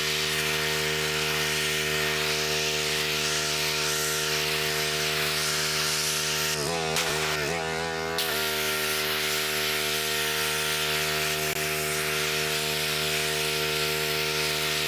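Gas engine of a 3000 psi pull-start pressure washer running steadily, its pitch briefly wavering about seven seconds in.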